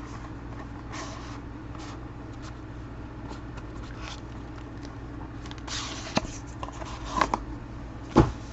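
Trading-card box and packs being handled and opened: scattered rustling, scraping and clicking of cardboard and wrapping. The handling gets busier about six seconds in, and there is a sharp click near the end.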